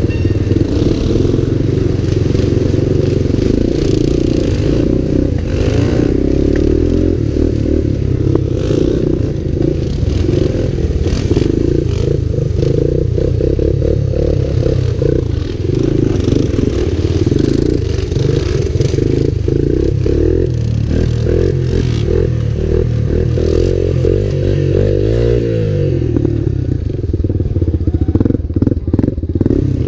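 Honda ATC three-wheeler's engine running under throttle while ridden over a rough trail, heard from on board. Its note rises and falls with the throttle, with a rising rev late on, and constant clatter and knocks from the machine jolting over bumps.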